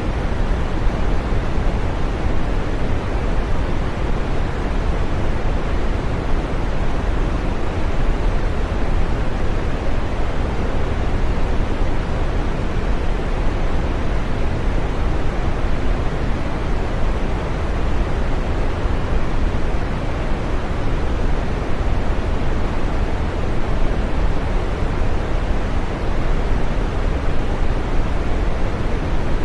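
Steady green noise: an even, unchanging rushing hiss, fullest in the low and middle range and fading off in the treble.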